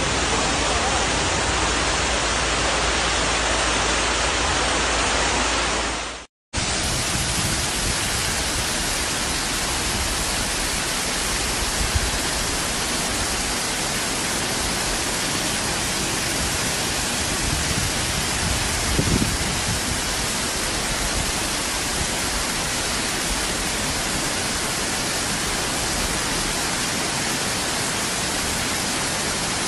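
Loud, steady rushing of floodwater, an even wash of water noise. About six seconds in it cuts out for a moment and then resumes.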